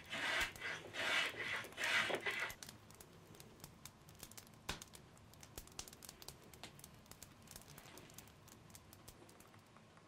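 Pencil scratching along a wooden bow strip in three strokes, followed by faint clicks and rustles as the strip is handled.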